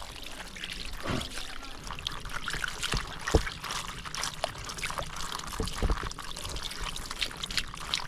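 Water pouring and splashing steadily as a pig's head is washed, with a few scattered knocks, the loudest a little past three seconds in.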